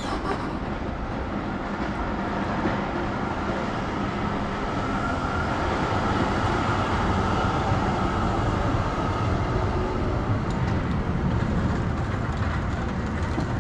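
Electric city tram running past alongside. Its running noise swells through the middle and eases off near the end, over steady rolling and wind noise from the moving bicycle camera.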